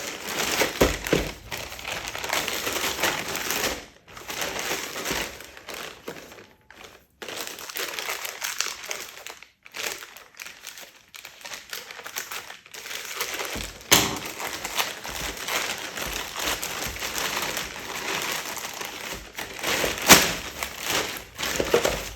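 Product packaging being handled and opened: irregular crinkling and rustling, with a few sharp knocks, the loudest about 14 and 20 seconds in.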